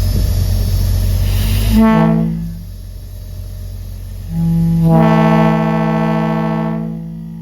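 Steady low rumble, then a locomotive air horn sounds: a short blast about two seconds in, and a longer held blast from about four and a half seconds that fades out near the end.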